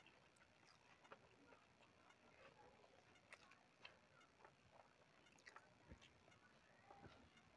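Very faint eating-by-hand sounds: fingers mixing rice on a metal plate, with soft scattered clicks, and chewing.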